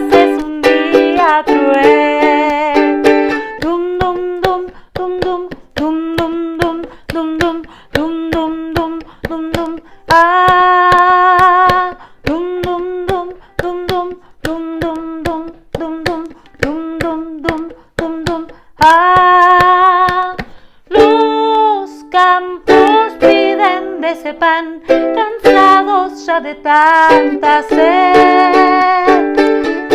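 A woman singing a children's song in Spanish with a strummed string instrument, one short melodic note after another over a steady strum.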